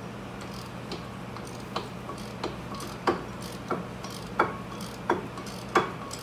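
Hand wrench clicking as it works a bolt behind a brake rotor: sharp metallic clicks about every two-thirds of a second, growing louder, over a steady low hum.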